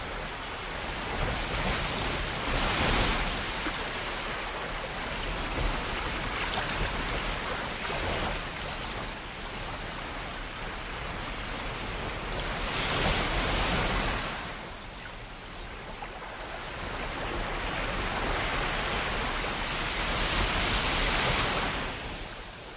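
A rushing, surf-like noise that swells and fades, loudest about three seconds in, again around thirteen seconds in, and near the end.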